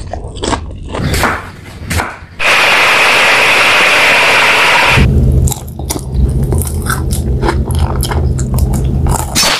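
Close-miked eating sounds: biting and chewing by hand with small wet clicks. In the middle comes a dense sizzle of milkfish frying in hot oil, lasting about two and a half seconds and the loudest part. The chewing and clicking then return over a steady low hum.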